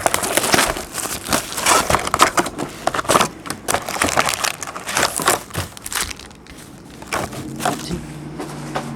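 Plastic wrapper crinkling and tearing as a sealed box of trading cards and its packs are opened by hand. It is a fast run of crackles that eases off after about six seconds.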